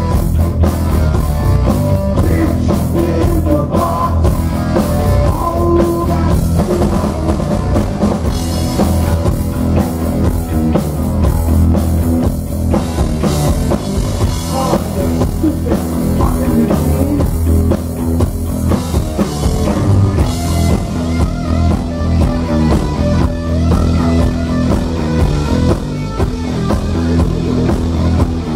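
Heavy metal band playing live and loud: distorted electric guitar over a steady bass and a driving drum kit.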